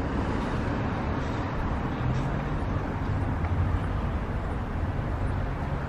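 Steady low rumble of vehicle traffic with a faint engine hum.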